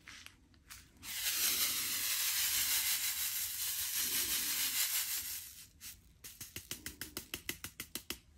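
Resin diamond-painting drills being shaken in a plastic sorting tray. They make a steady rattling hiss for about four seconds as they slide into the tray's grooves and line up. Near the end comes a quick run of light clicks, about seven a second, as the tray is jiggled.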